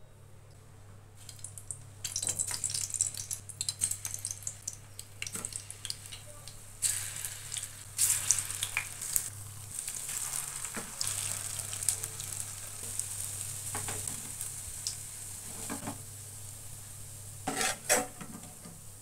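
Lauki paneer koftas sizzling as they shallow-fry in hot oil in a steel kadai. A metal spoon scrapes and clinks against the pan as the koftas are turned and lifted out, loudest near the end. The sizzling starts about a second in.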